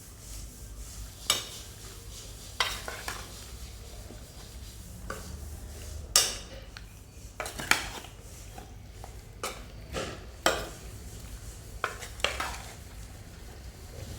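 A cooking utensil scraping and clinking against a pot as food is stirred, in several sharp strokes at uneven intervals.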